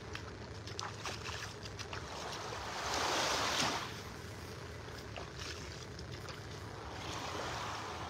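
Small Gulf waves lapping and washing up onto the sand, with one louder wash about three seconds in and a softer one near the end.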